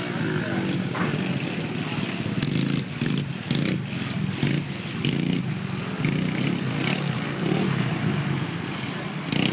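Mini motocross dirt bike engines running around the track, the engine note rising and falling as the riders throttle on and off.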